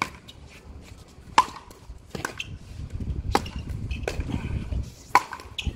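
A fast pickleball rally: composite paddles striking a hollow plastic pickleball with sharp pops about a second apart, mixed with lighter ticks of the ball bouncing on the hard court. A low rumble runs underneath in the middle.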